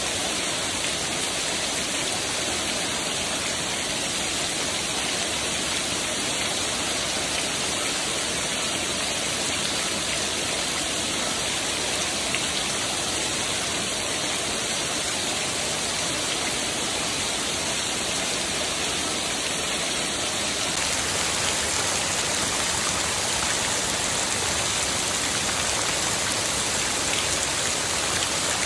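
Heavy downpour of rain splashing onto a flooded paved yard and streaming off a roof edge, a steady dense hiss that grows slightly louder about two-thirds of the way through.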